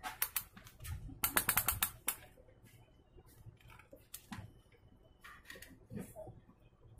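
A run of quick, light clicks and taps, about ten packed into a second near the start, followed by scattered single clicks.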